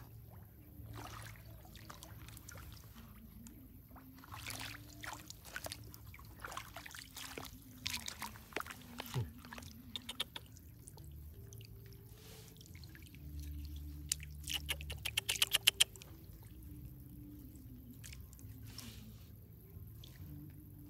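Hands scooping and splashing in shallow muddy water, with drips and scattered small clicks. About two-thirds of the way through comes a quick run of sharp clicks.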